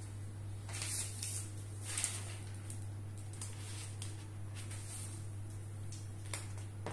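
Paper pages of a spiral-bound notebook rustling as they are turned, loudest about one and two seconds in, over a steady low hum. Near the end a ceramic mug is set down on the desk with a sharp click.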